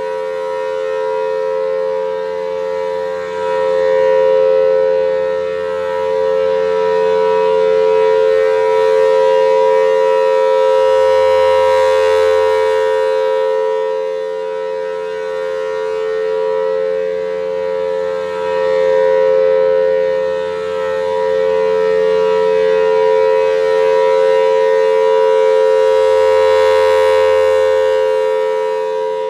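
Federal Signal Thunderbolt 1000T outdoor warning siren sounding a steady full-alert tone, pretty loud. Its loudness swells and fades several times as the rotating head sweeps round. The tone wobbles slightly, a sign that the siren is starting to get a bit pitchy.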